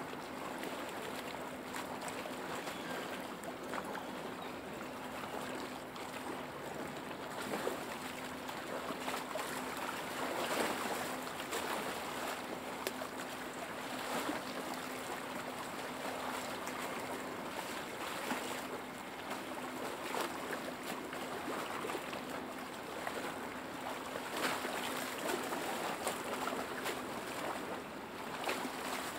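Small lake waves lapping and splashing: a steady wash of water broken by frequent little irregular slaps. A faint steady hum runs underneath for most of the time and fades out near the end.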